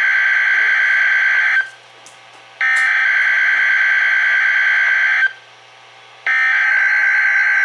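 Emergency Alert System SAME header on NOAA Weather Radio: harsh digital data bursts, each about two and a half seconds long with about a second's pause between them. One burst ends about a second and a half in, a second runs through the middle, and a third starts near the end. These are the coded header of a Required Weekly Test.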